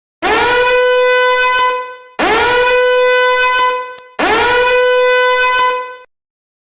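A horn blown in three long blasts on the same steady note. Each blast swoops up into pitch at the start and ends after just under two seconds, with short pauses between.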